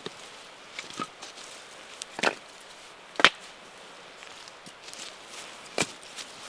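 Split firewood logs being stacked by hand, wood knocking on wood in about four separate clacks, the loudest about halfway through.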